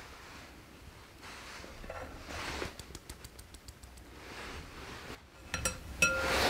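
Kitchen utensils and a mixing bowl being handled: soft brushing and swishing sounds, then two sharp, ringing clinks near the end.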